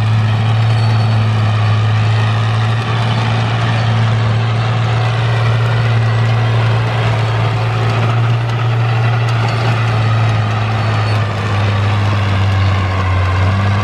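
Fiat 1000 Super DT tractor's diesel engine running steadily under load as the tractor drags a rear blade through loose soil. It makes a low, even drone.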